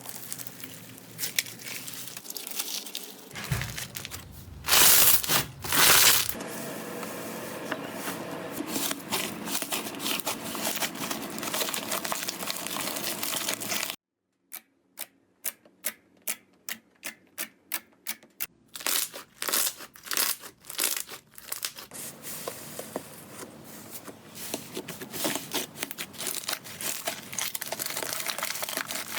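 Slime being squeezed and poked by hand, with dense crackling and crinkling. About halfway through comes a run of separate sharp pops, roughly three a second, before the dense crackling returns.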